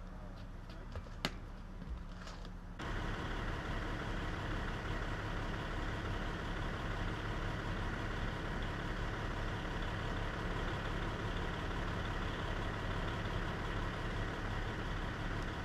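A vehicle engine idling steadily, cutting in suddenly about three seconds in; before that, a low steady hum with one sharp click.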